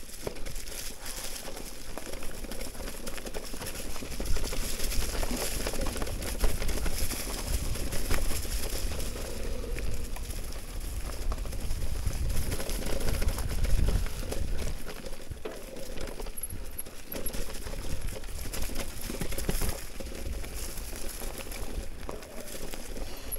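Canyon e-mountain bike with a Shimano EP8 mid-drive motor riding a leaf-covered dirt trail: tyres crunching over dry leaves, the drivetrain and frame rattling over bumps, and the motor's faint whine. A heavier low rumble runs from about four to fifteen seconds in.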